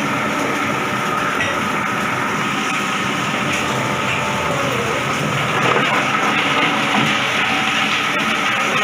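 Coconut shell and wood bark grinding machine running, a steady loud mechanical grinding noise that swells slightly about six and seven seconds in.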